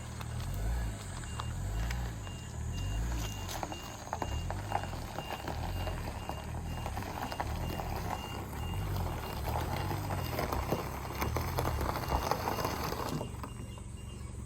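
A high electronic beep repeating about twice a second over a low rumble, all cutting off suddenly near the end.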